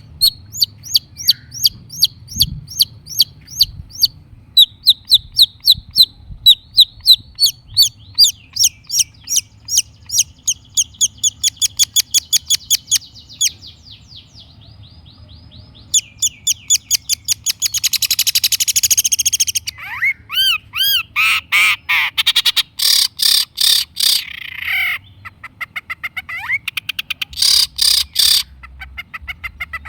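Long-tailed shrike singing: fast runs of sharp, high repeated notes, several a second, in the first half. After a short pause it switches to harsh, rasping chatter and rapid scratchy notes.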